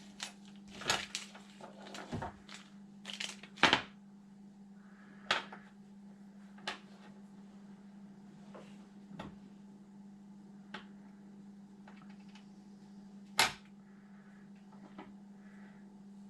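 Packaging of new RC car parts being opened and the parts handled: a cluster of crinkles and sharp clicks in the first few seconds, then scattered clicks and taps, under a steady low hum.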